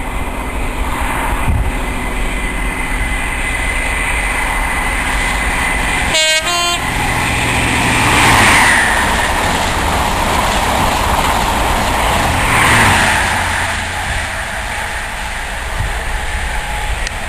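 HST (InterCity 125) passing at speed close by: the rush of the train with its diesel power cars, loudest twice about four seconds apart as the leading and then the trailing power car go by, then dying away.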